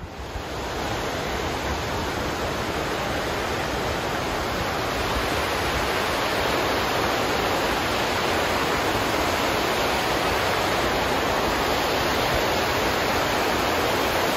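River water rushing over rocky cascades and falls, a steady rush that grows louder over the first couple of seconds and keeps building slightly as the falls draw closer.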